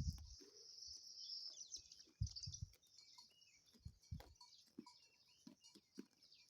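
Birds chirping faintly over a steady high chirring, broken by a few short low thuds from the grazing sheep.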